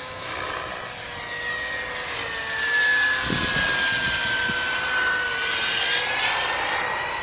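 JetCat P60 SE model jet turbine running with a high whine over a rushing roar. The whine sags in pitch and then climbs back, and the sound swells in the middle before easing off.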